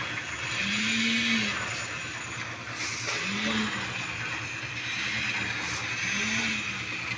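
A machine's motor running, its hum rising and falling in pitch about five times in uneven surges, over a steady hiss.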